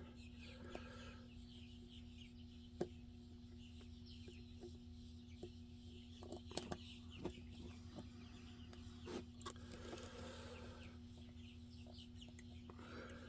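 Faint, scattered clicks of lock-picking tools working the pins inside a Medeco M3 cam lock, over a steady low hum.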